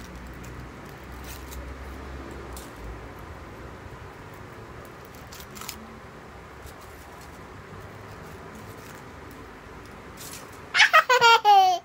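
Faint crinkling and clicking of a foil wrapper being peeled off a chocolate egg, then near the end a loud, rapid run of high cries that slide down in pitch over about a second.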